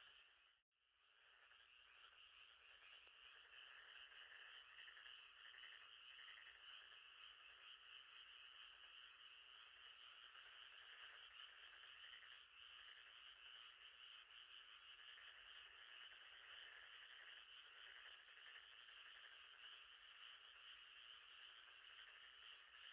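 A quiet, steady night chorus of frogs trilling, which drops out just under a second in and fades back up over a second or two.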